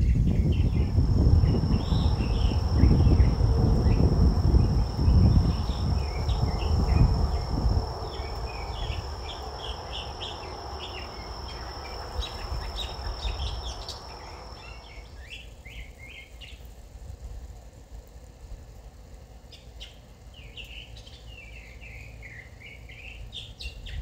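Birds chirping and calling, with a steady high insect drone and a broad hiss beneath them. A low wind rumble on the microphone runs through the first several seconds. About fifteen seconds in, the drone and hiss stop abruptly and only scattered bird calls remain.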